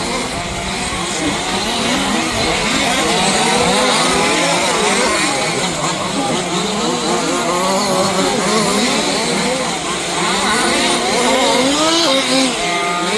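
Several 1/5-scale 4WD off-road RC cars' two-stroke petrol engines racing together, their pitches rising and falling continuously as they rev up and back off around the track.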